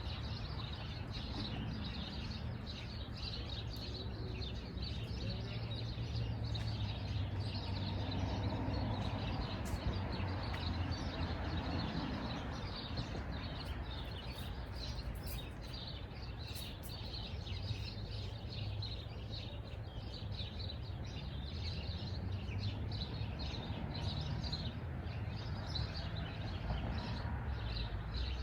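Small birds chirping with many short calls throughout, over a steady low background rumble.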